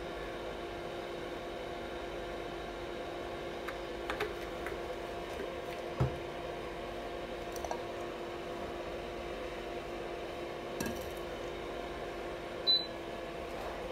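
A steady background hum, with a few light knocks and clinks from a glass jar and a nonstick frying pan being handled: one sharper knock about six seconds in and a short ringing clink near the end.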